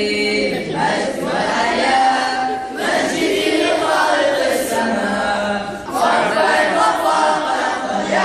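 A group of schoolboys singing together without instruments, in phrases broken by short pauses about a second, three seconds and six seconds in.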